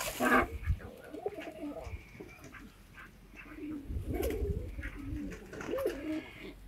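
Transylvanian double-crested tumbler pigeons cooing repeatedly in low, rolling calls, loudest about four to six seconds in. A short burst of wing flapping comes at the very start.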